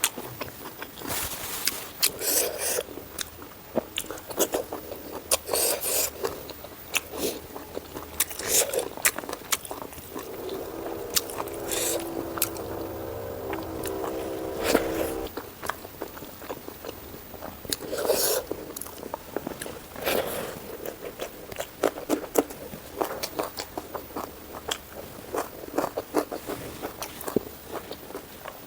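Close-miked eating of a meal of pork curry, rajma and papad: repeated biting, chewing and sharp crunches. Around the middle, a steady pitched tone is held for about five seconds under the chewing.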